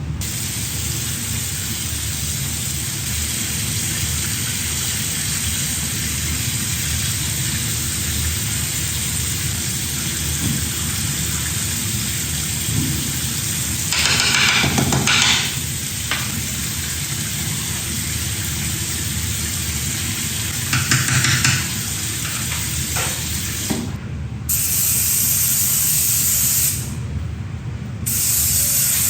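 Shower running, a steady hiss of spraying water. The spray gets louder and harsher for a second or two about halfway through, and again for longer stretches near the end.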